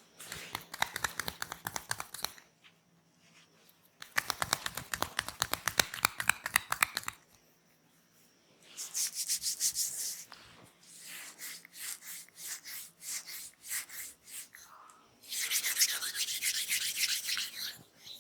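Massage hands working fast on skin, rubbing and tapping in quick repeated strokes, many to the second, in five bursts of a few seconds each with short pauses between.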